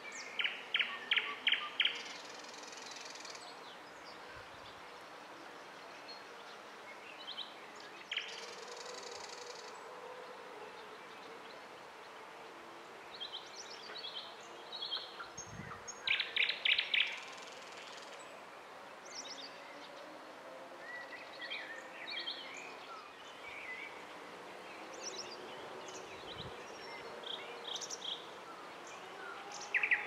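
Several songbirds singing and chirping. One bird repeats a loud phrase of rapid, evenly spaced notes, about a second and a half long, three times: near the start, about halfway, and at the end. Under it runs a steady low background noise.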